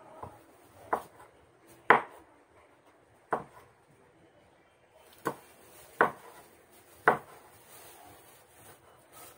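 Large kitchen knife chopping grilled squid on a wooden cutting board: about six separate chops at irregular spacing, each a sharp knock of the blade striking the wood.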